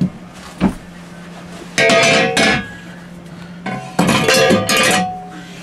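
Electric drive motor's metal housing scraping and grinding against an aluminium mounting bracket as it is worked into place: a light knock, then two loud ringing metal scrapes, the second longer, over a low steady hum.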